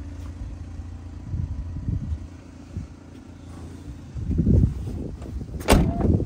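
Rear tailgate of a VW Transporter van swung down and slammed shut: a dull thud about four seconds in, then one sharp bang near the end, over a steady low rumble.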